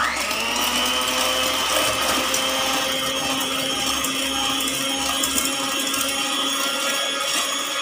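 Electric hand mixer spinning up at the very start, then running at a steady speed with an even motor whine as its beaters whip sweetened egg whites in a stainless steel pot.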